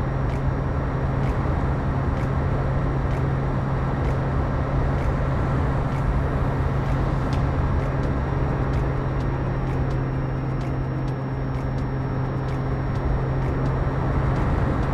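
Steady wind rush over an onboard camera on a flying-wing RC plane in cruise, with the constant hum of its electric pusher motor and propeller running at an even speed.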